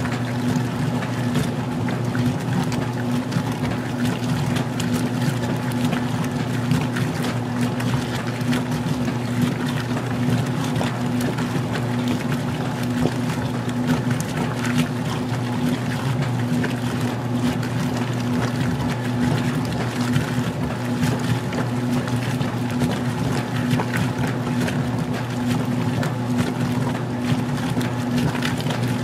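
Magic Chef 20-pound washing machine in its wash agitation: the motor runs with a steady hum while water sloshes and splashes in the tub.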